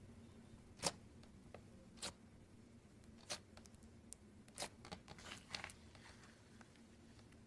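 Slime being squeezed and poked, giving faint, scattered sharp pops and clicks, the loudest about a second in and a quick cluster past the middle.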